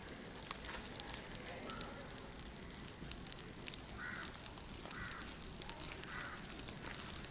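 A fire of coconut shells and husk crackling steadily with many sharp pops. A bird calls three times, about a second apart, in the second half, with a fainter call earlier.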